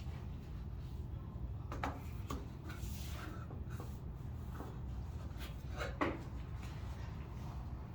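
Hands handling the iMac's packaging and parts: a few brief scrapes and knocks, the sharpest about six seconds in, over a steady low hum.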